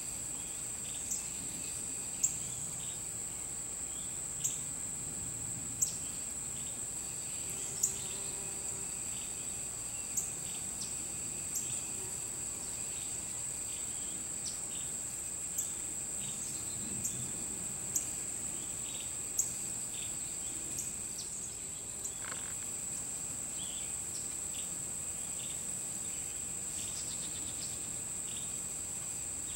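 A chorus of insects: a steady high-pitched trill with softer repeating chirps beneath it, and short sharp chirps every second or two that stop after about twenty seconds.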